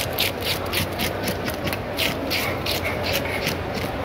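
Scales being scraped off a whole ruby fish with a hand scaler: quick, rhythmic rasping strokes, about three or four a second.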